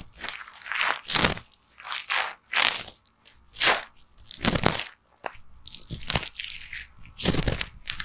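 Metal tweezers scraping and rubbing inside the canal of a silicone ear microphone, close up: irregular scratchy strokes, about one or two a second.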